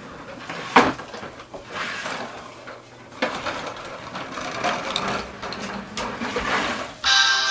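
Hard plastic wheels of a child's ride-on tricycle rolling and rattling across a vinyl floor, with a sharp knock a little under a second in and another about three seconds in. Music starts just before the end.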